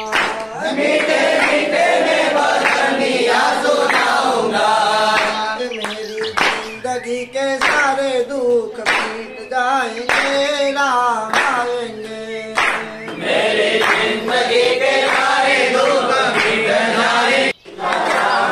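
A group of men singing a devotional bhajan together, with hand claps keeping the beat. The singing breaks off briefly near the end.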